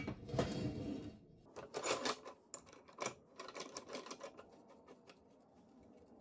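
Rusty steel flat bar clanking and scraping as it is laid onto the metal cut-off stand, followed from about three seconds in by a run of quick, light clicks and rattles as the stand's threaded vise screw is wound in.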